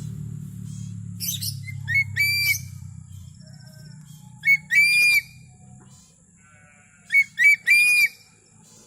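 An eagle calling: three bursts of loud, high, ringing calls, two or three notes each, over a low hum that dies away about six seconds in.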